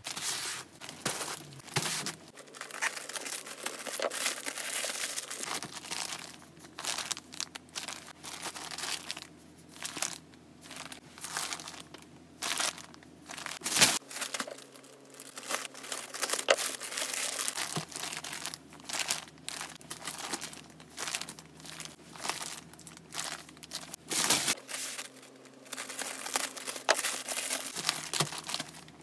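Hamster cage bedding crinkling and rustling in quick, irregular crackles that come and go.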